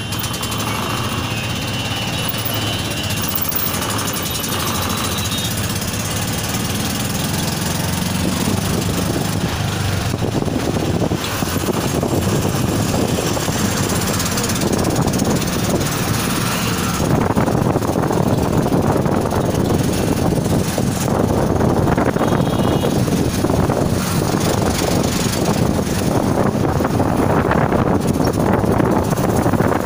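Auto-rickshaw engine running as it pulls away and drives along, with road and wind noise. The noise grows louder in steps about eleven and seventeen seconds in as it picks up speed.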